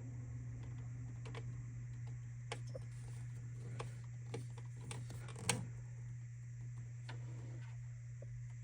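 Scattered light clicks and taps of small mounting hardware being handled while an AIO cooler's pump block is fitted, over a steady low hum. The sharpest click comes about five and a half seconds in.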